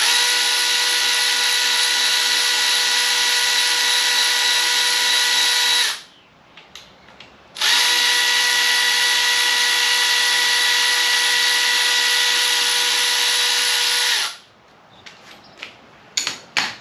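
A handheld power tool's motor runs at a steady, unchanging pitch for about six seconds, stops, then runs again for about six and a half seconds. A few light clicks and knocks follow near the end.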